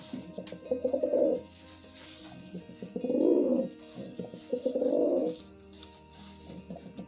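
Domestic pigeon cooing: three low, swelling coos about two seconds apart, each opening with a quick stutter, typical of a courting male.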